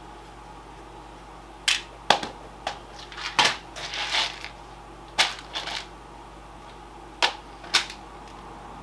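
Clicks and light clatter of small screws and drive parts being handled and set down on a workbench: around eight sharp knocks spaced irregularly, with a short stretch of rustling in the middle.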